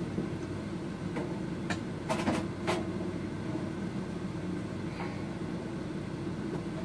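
A few light knocks and clatters from tools being handled and moved about, mostly bunched about one to three seconds in, with one more near five seconds. Under them runs a steady low hum.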